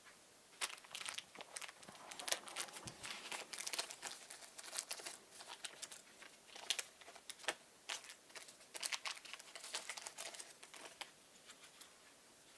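Crinkly plastic being handled, with many small, quick clicks and rustles, as drone propeller blades and their packaging are worked with by hand.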